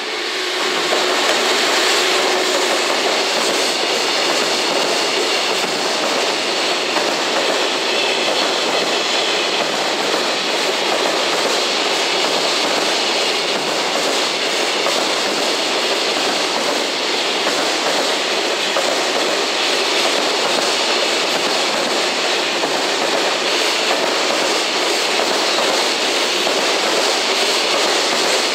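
Container freight train hauled by an EF210 electric locomotive, passing close by: a steady loud rumble and clatter of wagon wheels on the rails. It swells about a second in as the locomotive draws level, then holds steady while the container wagons roll past.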